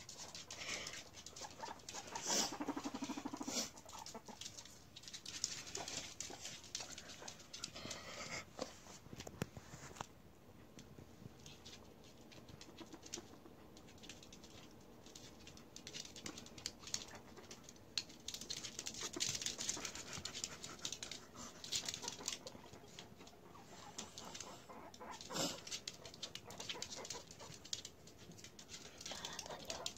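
Guinea pigs moving about on a wooden floor: small claws pattering and clicking, with faint scuffling and sniffing, and a brief low buzz about two to three seconds in.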